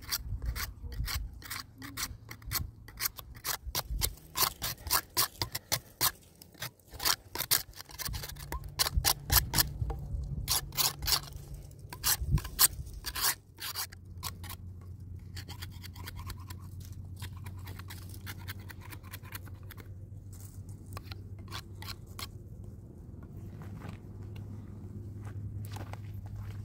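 A knife shaving and scraping a wooden stick in quick, repeated strokes. About halfway through the strokes thin out to occasional scrapes over a low steady hum.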